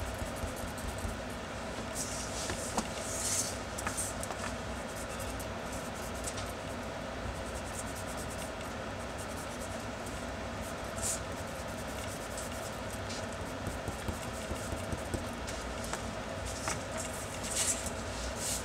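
Eraser rubbing on pencilled drawing paper in a few short spells, a cluster near the start, one in the middle and another near the end, over a steady low room rumble.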